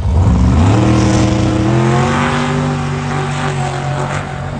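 A vehicle engine at full throttle: the revs climb quickly in the first half second, then hold high and steady, with a rushing noise over it.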